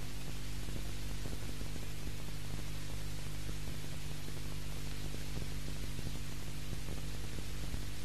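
Steady hiss with a low electrical hum underneath and no other sound: the noise floor of a VHS recording of a TV broadcast.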